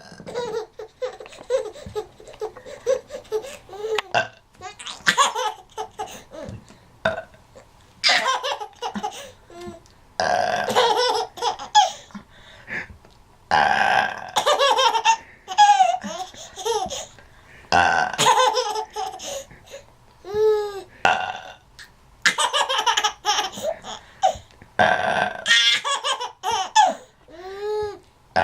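Burps again and again, with a baby laughing at them in bursts that come every few seconds.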